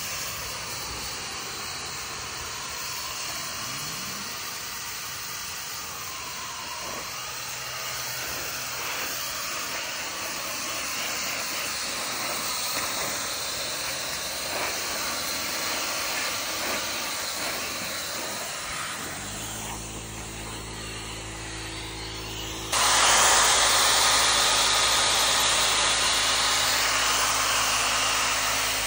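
Pet dryer blowing a steady rush of air through its hose and nozzle, with the motor's hum coming through. About two-thirds of the way in it suddenly gets much louder and hissier.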